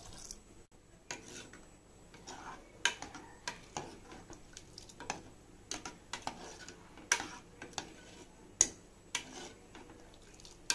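A ladle stirring thin sambar in an aluminium pressure cooker, knocking and scraping against the pot's sides in irregular clinks about once or twice a second, with one louder knock near the end.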